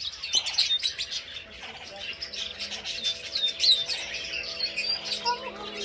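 Aviary birds chirping busily in many short, sharp calls. From about two seconds in, soft held music notes play underneath.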